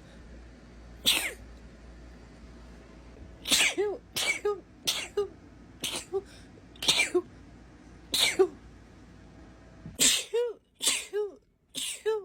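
A woman sneezing over and over in a fit: about a dozen sharp sneezes, several coming in quick runs of two or three, most ending in a short voiced 'choo'.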